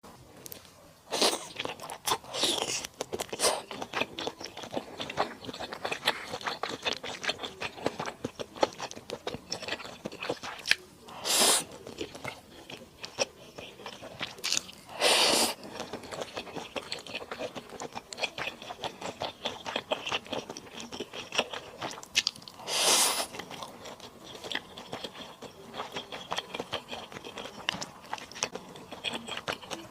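Close-up eating sounds of a person chewing and crunching through lemon chicken stir-fry: rapid wet mouth clicks and crunches throughout, with a few louder, longer noisy bursts about one, eleven, fifteen and twenty-three seconds in.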